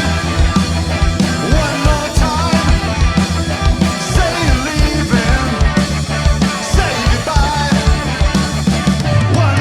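Rock band of electric guitar, bass and drums playing a fast, driving punk-style rock song at full volume.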